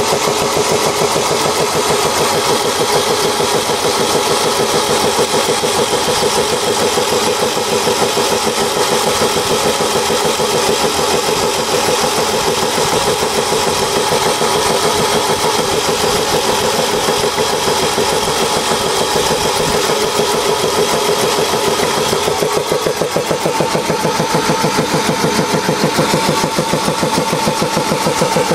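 Homemade belt-driven piston air compressor running steadily, its pump driven through V-belts and reduction pulleys by a 500 W electric motor, with an even, rapid chugging as it charges its air tank.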